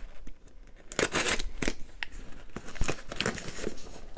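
Packing tape on a small cardboard box being slit with a knife and torn, then the box flaps pulled open, with cardboard scraping and foam packing peanuts rustling. It starts about a second in.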